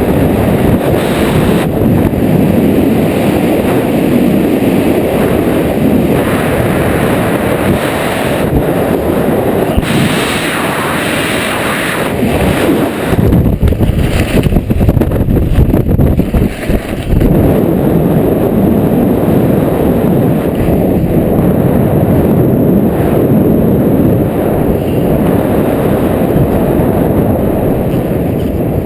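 Wind rushing and buffeting over a helmet camera's microphone in freefall during a wingsuit skydive: a loud, steady rush that turns harder and more uneven for a few seconds about halfway through.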